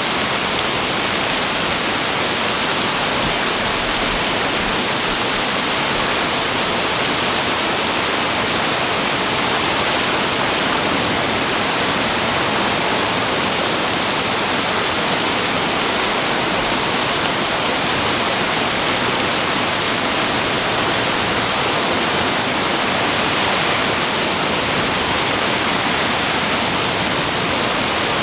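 A flooded brook's high water rushing, a loud, steady roar of water with no breaks.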